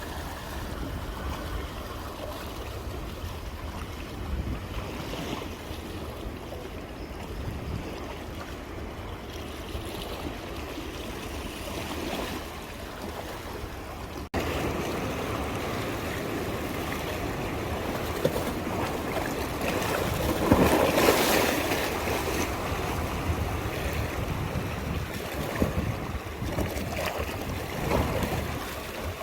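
Sea waves washing onto the shore, a steady rush of surf with wind rumbling on the microphone. About halfway through, it cuts abruptly to a louder stretch, where a wave breaks with a bigger surge about two-thirds of the way in.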